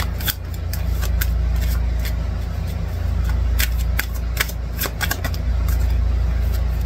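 Tarot cards being handled and shuffled: scattered sharp clicks and slaps of the cards, over a steady low hum that runs throughout.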